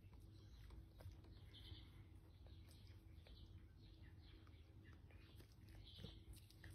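Near silence, with faint short bird chirps now and then and scattered faint ticks.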